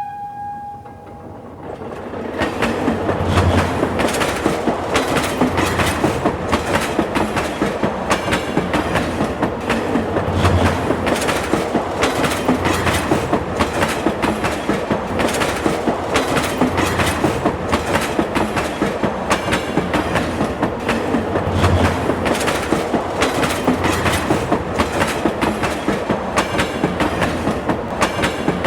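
A train horn's single steady note fades out in the first second, then a train rolls by with a steady, rhythmic clickety-clack of wheels over the rail joints and a low rumble.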